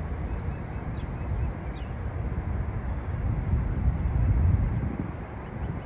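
Steady low outdoor rumble that swells briefly about four seconds in, with a few faint, high bird chirps above it.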